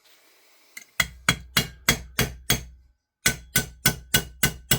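Hammer tapping a pin punch to drive out the forward-assist roll pin of an airsoft rifle's upper receiver: quick sharp strikes about three a second, each with a short metallic ring, starting about a second in, with a brief pause near the three-second mark. The pin is moving slowly under the blows.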